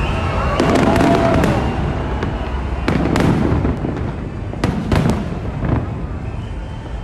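Aerial fireworks display going off: a run of sharp bangs and crackles over a steady low rumble, with the heaviest bangs about three and five seconds in.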